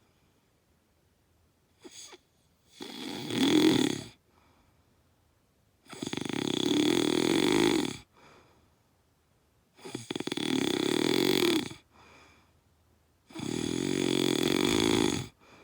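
Loud snoring: four long snores of one to two seconds each, coming about every four seconds with quiet gaps between.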